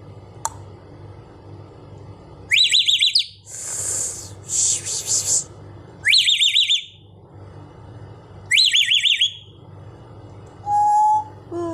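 African grey parrot mimicking a ringtone: three short, rapid trilled whistles a few seconds apart, with two harsh breathy bursts after the first. A single steady whistled note comes near the end.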